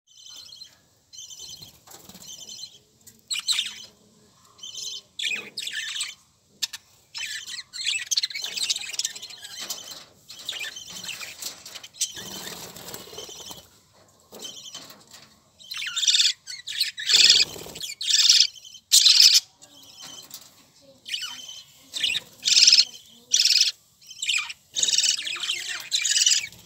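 Budgerigars chirping and chattering in busy bursts of short, high calls with brief pauses between them.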